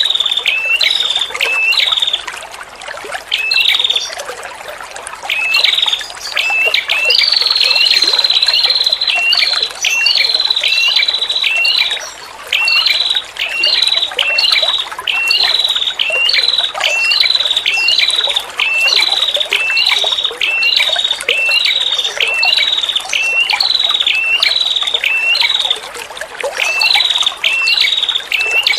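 Female prenjak kepala merah calling a long series of sharp, repeated 'tir' notes, about two a second, with a brief pause a few seconds in and one longer drawn-out note. A steady trickling-water sound runs underneath.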